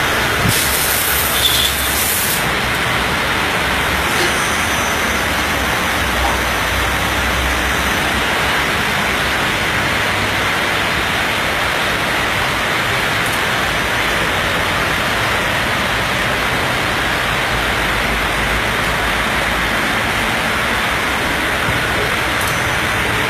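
Steady, even rushing noise with no rhythm or pitch, and a brief high hiss about a second in.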